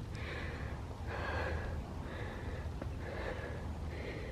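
A hiker breathing hard, about one breath a second, winded after climbing a hill, over a low steady rumble.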